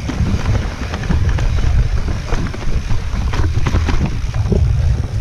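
Wind rushing over the camera microphone on a mountain bike riding down a rough forest singletrack, with the bike's chain and frame clattering and clicking over roots and stones.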